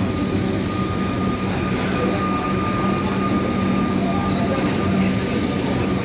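Suburban electric train rolling slowly along the platform as it pulls in, a steady rumble with a constant high whine over it, and a crowd murmuring on the platform.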